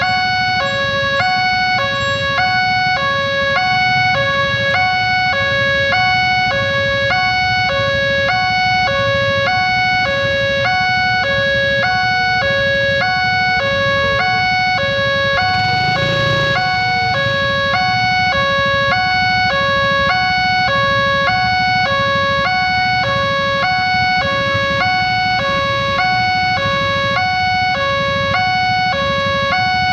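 Electronic two-tone warning siren of an Indonesian railway level crossing, sounding the alarm that a train is approaching and the barrier is closing. It alternates steadily between a lower and a higher tone, a full cycle about every second and a quarter. A low rumble runs beneath it and swells briefly about halfway through.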